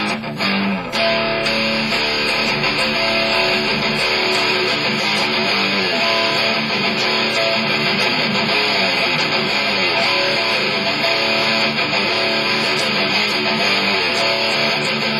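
Electric guitar played through an amplifier, notes and chords going on without a break.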